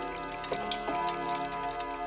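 Many mechanical clocks ticking at once in a dense, uneven patter of clicks. Through it ring clock chime tones, struck again about half a second and about a second in and left to sustain.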